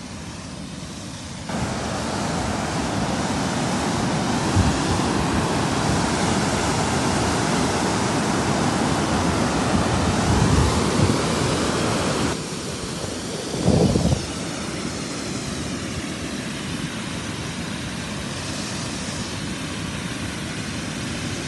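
Floodwater rushing over a concrete dam spillway and churning in the white water below, a steady dense rush of falling water. It grows louder about a second and a half in and eases somewhat about twelve seconds in, with a short louder low swell near fourteen seconds.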